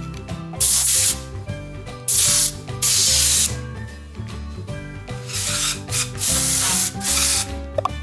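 Compressed-air blow gun firing six short blasts of hissing air at a motorcycle handlebar grip, about half a second each, with background music underneath.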